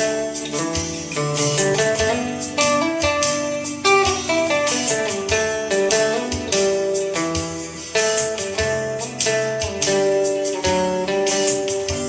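Acoustic guitar played solo: a steady stream of picked melody notes over ringing chords, with no singing.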